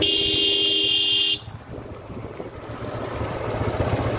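Motorcycle horn sounding once, a steady tone held for about a second and a half, over the engine and wind noise of the moving motorcycle. After the horn stops, the riding noise drops and then slowly builds again.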